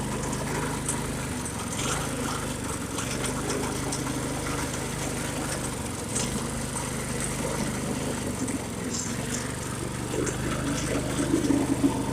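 Go-kart engine running steadily at a constant pitch while the kart pushes through deep floodwater.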